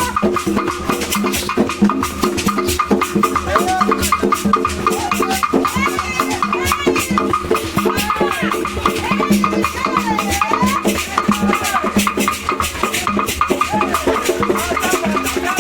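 Upbeat choir music: singing voices over a band with drums and shaken rattles keeping a dense, fast, steady beat.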